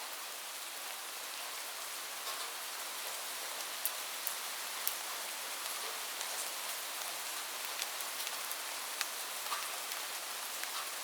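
Steady rain falling, an even hiss with scattered sharp ticks of single drops standing out from it.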